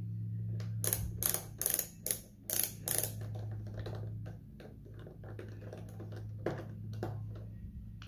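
Cordless electric screwdriver running steadily as it backs out the Phillips screws of a Roomba s9's cleaning head housing, with a quick series of sharp clicks over the first few seconds, then fainter ones. The motor stops near the end.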